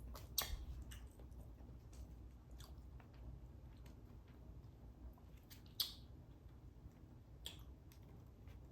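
Faint chewing and mouth sounds of a person eating, broken by scattered short clicks; the sharpest click comes a little before six seconds in.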